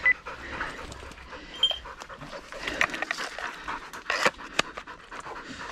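Hunting dog panting after the boar chase, with a few sharp crackles of dry leaves and twigs underfoot, the loudest about four seconds in.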